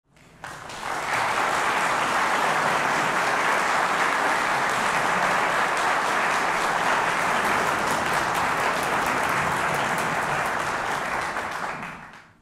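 Audience applauding, swelling up within about a second, holding steady, then fading out near the end.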